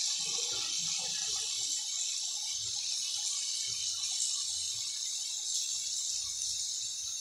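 Potatoes and onion-tomato masala gravy sizzling in a nonstick kadai: a steady high hiss as the masala fries down to a finished gravy.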